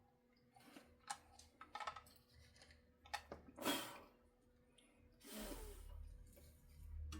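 Faint scattered clicks and taps of small tools and guitar wiring parts being handled during soldering, with a short swish a little over three seconds in and a longer breathy rush about five seconds in.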